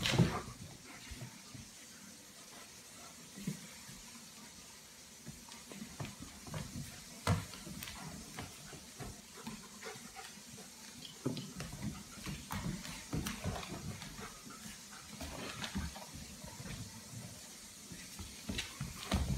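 Two dogs, a German Shepherd and a small tan dog, playing on a hardwood floor: scattered claw clicks, footfalls and scuffles, with a louder burst of play at the very start.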